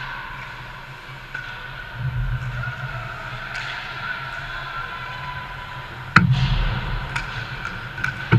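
Ice hockey game at the rink: a steady low rumble with faint play noise. A sharp crack of a hit comes about six seconds in, and a smaller one near the end.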